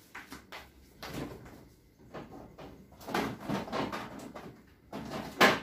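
Kitchen drawer and door being opened and shut, with rummaging knocks and rustles; the sharpest, loudest knock comes near the end.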